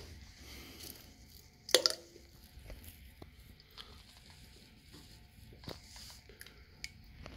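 Close handling noise of a small ferrotungsten ingot turned in the fingers: faint rustling, one sharp click about two seconds in, and a few smaller clicks later.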